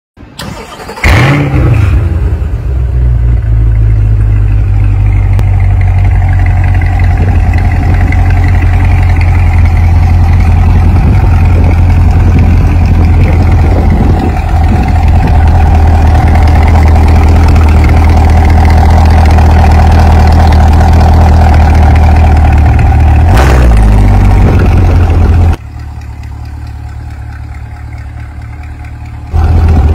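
The 2020 C8 Corvette's 6.2-litre V8 starts with a quick flare of revs about a second in, then settles into a steady, deep idle through the quad exhausts. Near the end the sound drops noticeably quieter for a few seconds, then comes back up to full level.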